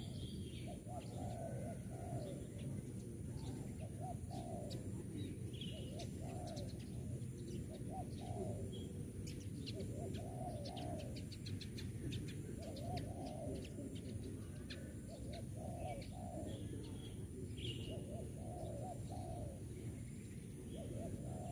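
Spotted dove cooing: short, rolling coo phrases repeated every second or two, with quick high chirps and ticks in between over a steady low background rumble.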